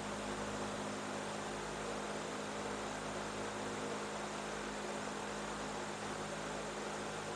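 Steady electrical mains hum with a constant hiss under it: room tone.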